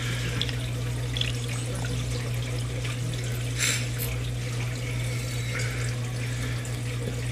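Steady running, trickling water over a constant low electrical hum, with a couple of faint clicks a little past halfway.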